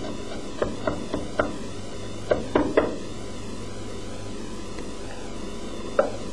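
Kitchen knife blade knocking on a cutting board while lemon zest is cut into fine julienne: about seven irregular chops in the first three seconds, then one more knock near the end. A steady low hum and hiss runs underneath.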